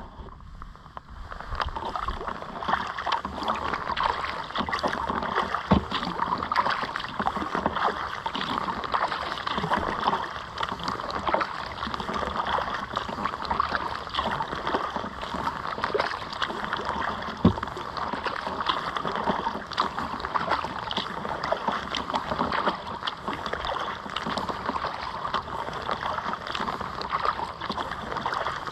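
Choppy lake water lapping and splashing against a kayak's hull as it is paddled along, a steady wash with small splashes throughout. Two sharper knocks, about six seconds in and again near eighteen seconds.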